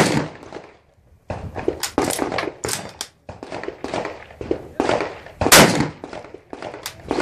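Irregular gunfire from several guns at a firing line, many shots overlapping at different distances. The two loudest, closest shots fall at the very start and about five and a half seconds in.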